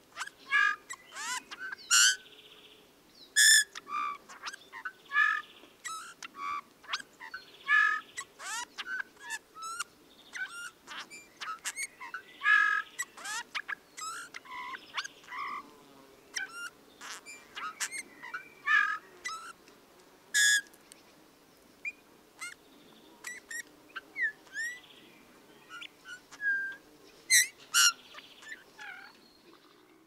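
Eurasian bullfinch singing: a rambling run of short, irregularly spaced creaky notes, likened to creaking metal, mixed with brief whistles and a few gliding notes.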